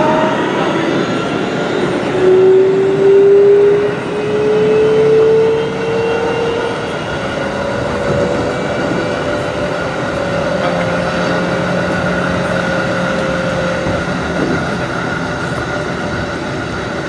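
Keikyu New 1000 series train running, its Siemens IGBT-VVVF inverter and traction motors whining over the steady rail noise. The whine's tones rise in pitch through the first several seconds, as when the train is gathering speed, then hold a nearly steady pitch.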